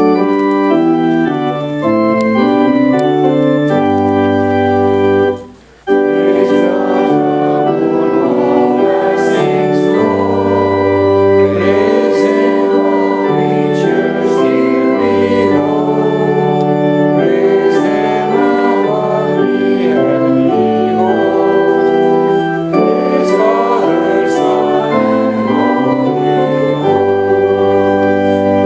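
Organ playing slow, held chords, with a short break about five seconds in.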